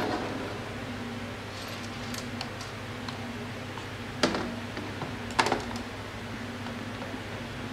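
Light clicks and two sharper knocks, about four and five and a half seconds in, as the plastic mechatronic unit (TCM) and aluminium valve body of a ZF 8HP automatic transmission are handled and fitted together, over a steady low hum.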